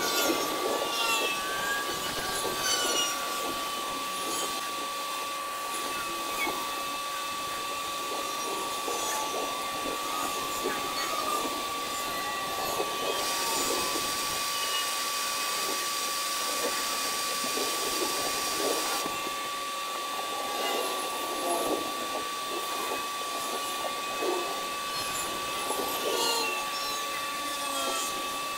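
Outdoor evening ambience sped up twenty-fold: a steady high hum under a jumble of short, squeaky chirps and pitch glides. A patch of high hiss comes in about halfway through and stops a few seconds later.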